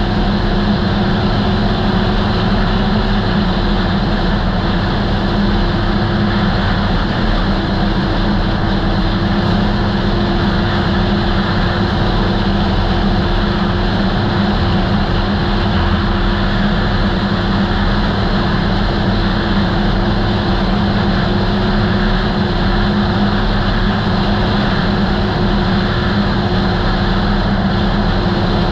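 2008 Polaris Dragon Turbo snowmobile engine running at a steady cruising speed, with track and trail noise.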